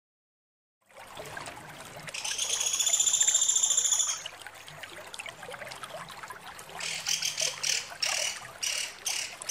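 Female pelatuk sampit woodpecker calling: one long, high rattling trill of about two seconds, then a few seconds later a fast string of sharp repeated notes.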